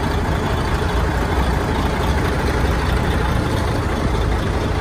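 Heavy diesel truck engine idling steadily, a deep even rumble.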